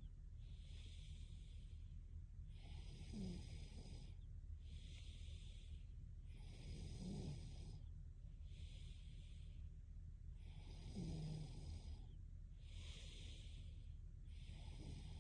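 A young woman breathing slowly and evenly in her sleep, faintly, with a soft low snore on every other breath, about every four seconds.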